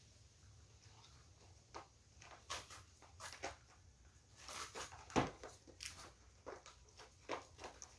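Dogs moving about on a tiled floor: scattered light clicks and taps, irregular and a few at a time, the loudest about five seconds in, over a faint steady hum.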